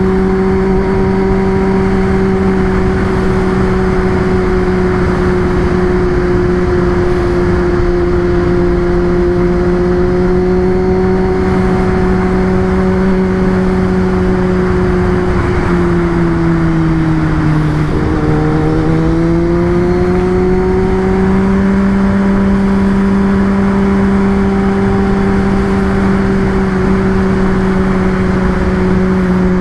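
Kawasaki ZX-10R inline-four engine running at a steady cruise, with wind and road noise. About halfway through, the engine note drops, then climbs back up as the rider rolls off and accelerates again.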